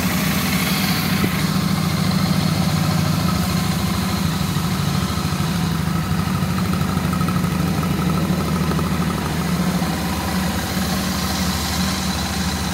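Royal Enfield Shotgun 650's 648 cc parallel-twin engine idling steadily, heard through its exhaust.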